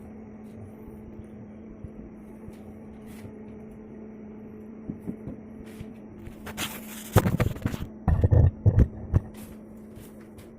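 A steady low hum, then a run of loud knocks and clatter starting about seven seconds in and lasting about two seconds.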